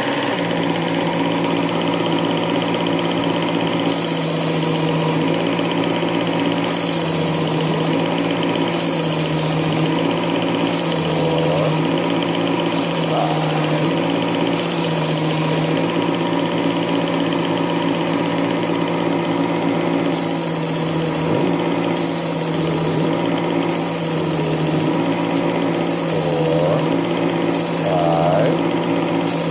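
Work Sharp Ken Onion knife sharpener with the Blade Grinder attachment running steadily. A knife blade is drawn across the abrasive belt about ten times, and each pass adds roughly a second of grinding hiss while the motor's pitch sags slightly under the load.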